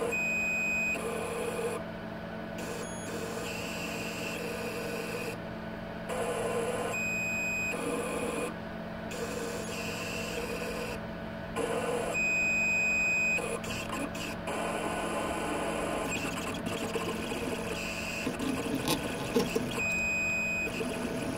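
Microstep-driven stepper motor on a converted Boss 5 mill whining in repeated short spurts, each about a second long, as it turns the graduated axis dial, over a steady low hum.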